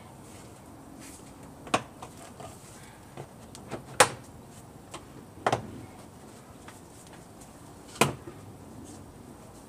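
Hard plastic air filter housing of a BMW 328i being pressed and seated back into place: four sharp plastic clicks and knocks, about two seconds apart, with a few lighter taps between.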